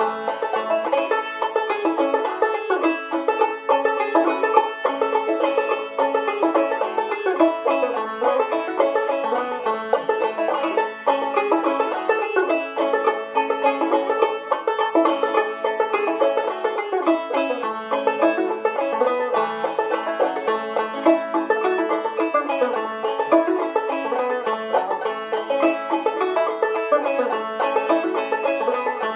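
Solo five-string banjo played clawhammer style in standard A tuning (aEAC#E), a steady run of quick plucked notes carrying an old-time fiddle tune.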